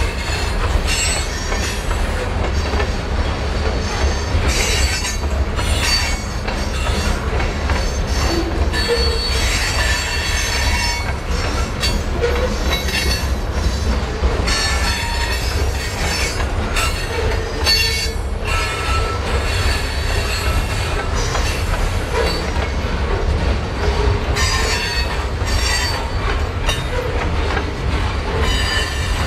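Cascade and Columbia River Railroad freight train rolling by, its wheels squealing on and off in high, shifting tones over a steady low rumble.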